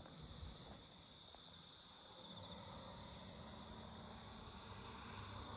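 Faint, steady insect chirping, with a quick pulsing trill of about four pulses a second for a couple of seconds midway, over a low rumble.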